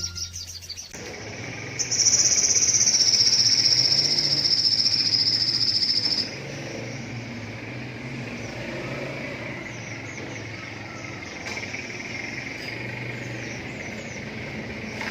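Outdoor insect chorus: a loud, high, steady insect trill for about four seconds starting two seconds in, then a quieter continuous buzz of insects with a few faint, short bird chirps over it.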